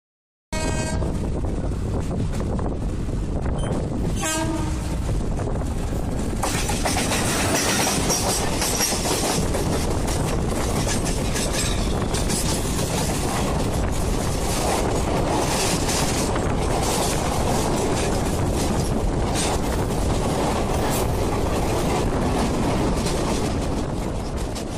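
Passing Indian Railways express, the 12601 Chennai–Mangaluru Mail, heard from the open window of another moving train: a train horn sounds twice in the first few seconds. Then comes a continuous rush of wheel and air noise with rapid clickety-clack from rail joints as the coaches go by.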